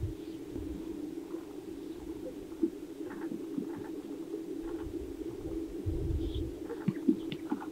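Greater sage-grouse males displaying on a lek: a steady low chorus with occasional short sharp pops from the strutting birds. Wind rumbles on the microphone in gusts, strongest past the middle.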